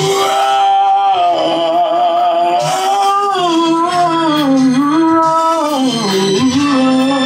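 A man singing one long wordless melodic line, holding notes and sliding slowly between them, dipping lower near the end, in a small room.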